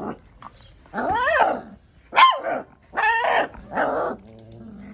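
An angry one-month-old Labrador puppy barking: four high-pitched yapping barks, the first one drawn out.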